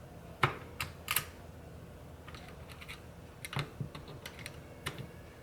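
Scattered sharp clicks and taps of a hand tool working against metal parts inside a steering column, prying at a retainer during disassembly. There are three quick clicks in the first second or so, then a few lighter ones later.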